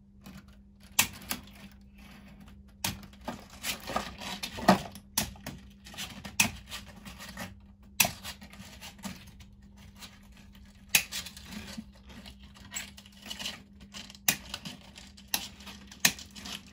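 Hand cutters snipping through chicken wire: a run of sharp, irregular snips, about one every second, as the top of the mesh is trimmed off.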